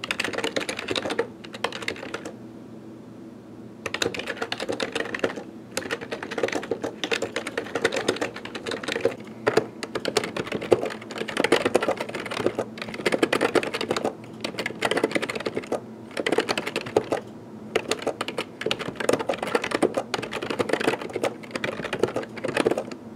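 Fast typing on a computer keyboard: quick runs of key clicks broken by short pauses, the longest a gap of about two seconds near the start.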